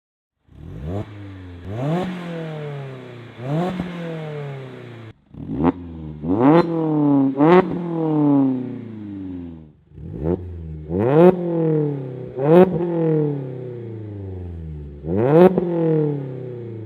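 Mazda ND2 Miata four-cylinder engine revved in quick blips from idle through its exhaust, each rev climbing sharply and falling back slowly, about ten revs in three separate clips cut one after another.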